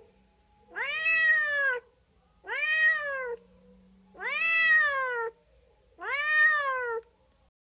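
Domestic cat meowing four times, each meow about a second long, rising then falling in pitch, with short pauses between.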